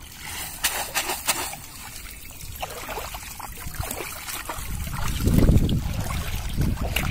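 Water splashing and trickling off a bamboo fish trap as it is lifted out of shallow water and drains through its slats, loudest in the first second and a half. A low rumble comes in about five seconds in.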